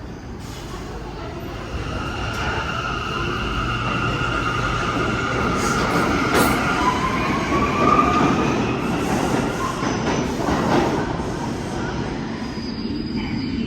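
R179 New York City subway train departing: its rumble grows louder as it gathers speed. Over it runs an electric whine in a few steady tones, one of which glides upward about halfway through.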